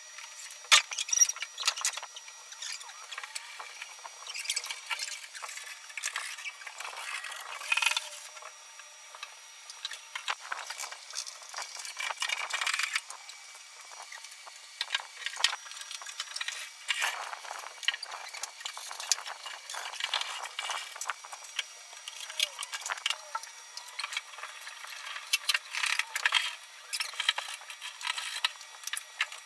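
Irregular clinks, clicks and small knocks from flat-pack furniture assembly: metal screws and fittings rattling in hands and particleboard panels being handled and fitted together.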